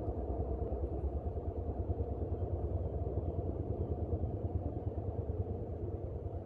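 Helicopter flying overhead: a steady low rumble that flutters rapidly in level.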